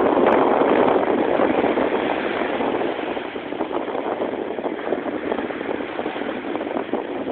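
Sea waves washing in: a steady rushing surf that is loudest for the first two or three seconds, then eases.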